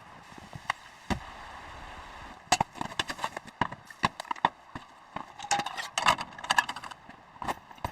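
A quick, irregular run of sharp clicks and knocks, thickest from about two and a half to seven seconds in, with a dull thump about a second in.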